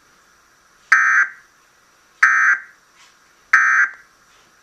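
Emergency Alert System end-of-message code played on a television: three short bursts of buzzing digital data tones, about a second apart, marking the end of the tornado warning.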